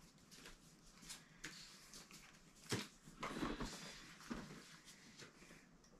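Pokémon trading cards being handled and stacked on a table: faint light taps and rustles, with a sharper knock about three seconds in followed by a short rustle.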